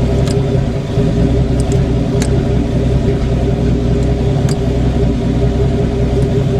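AMC 258 (4.2 L) inline-six running steadily through a straight-pipe exhaust, with a deep, even rumble.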